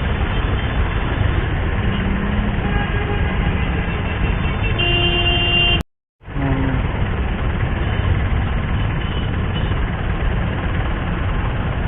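Motorcycle engine and traffic noise heard while riding through city traffic. A vehicle horn sounds briefly about five seconds in, and the sound cuts out for a split second just before the six-second mark.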